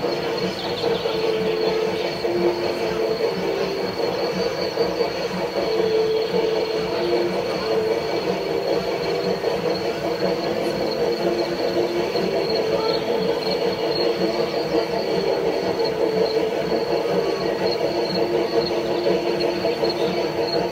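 H0-scale model narrow-gauge steam locomotive running with a coach up a mountain layout's track: a steady mechanical hum with held mid-pitched tones that shift now and then, and a thin high whine over it.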